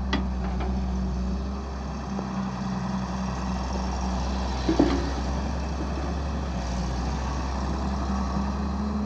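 Heavy diesel engine of an excavator running steadily, with a few light clicks near the start and one sharp metallic clank about five seconds in.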